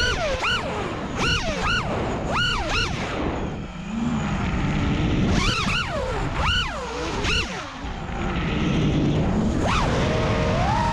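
FPV quadcopter's brushless motors whining, the pitch sweeping sharply up and down in quick repeated surges as the throttle is punched through rolls and flips. Twice it settles to a lower hum, and near the end it climbs to a steadier whine.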